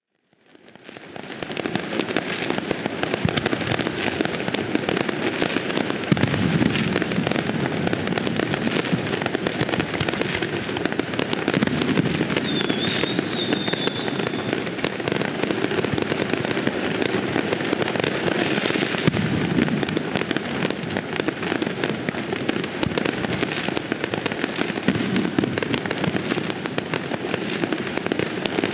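Fireworks display: a dense, continuous barrage of bangs and crackling that fades in over the first second or so, with a short whistle about halfway through.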